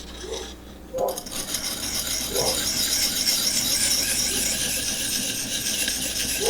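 Knife edge being stroked against a 600-grit abrasive in a Vipersharp guided sharpening system, giving a steady scraping hiss that starts about a second in; this is the stage of setting the secondary bevel. A dog barks a few times in the background.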